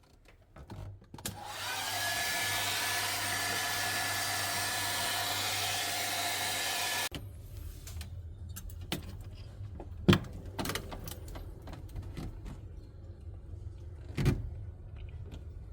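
A small high-speed electric fan motor runs with a rush of air and a steady whine for about six seconds, then switches off suddenly. A few sharp knocks follow over a low hum.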